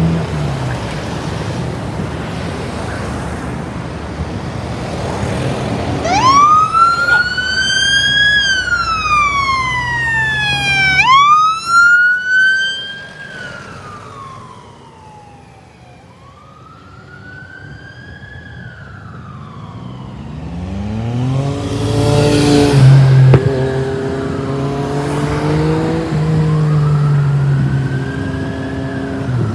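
Fire engine idling, then its siren starts about six seconds in with a slow wail, each sweep rising quickly and falling over several seconds. The siren grows fainter, then returns as the truck's engine revs up loudly, rising in pitch, near the end.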